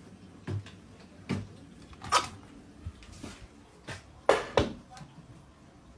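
A handful of scattered knocks and clicks, about seven in all, the loudest pair near the end, like things being handled in a small room.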